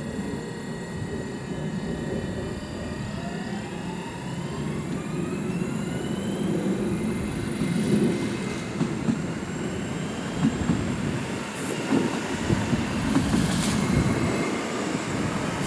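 Electric multiple unit train pulling away under power, its traction motors whining and rising in pitch as it gathers speed over a steady rail rumble. In the second half its wheels knock rhythmically over rail joints as the cars pass close by.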